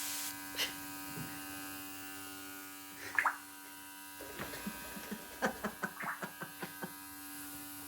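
African grey parrot giving one whistle-like call about three seconds in, then a quick run of about a dozen short clicks and chirps, over the steady buzz of an electric appliance.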